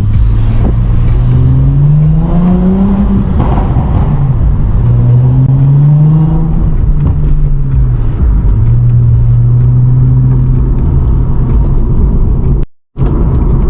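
Lexus IS350's 3.5-litre 2GR-FSE V6, breathing through an Invidia midpipe and Manzo axle-back exhaust, revs up and eases off twice and then holds steady. Crackles and pops come as the throttle closes, from a custom tune.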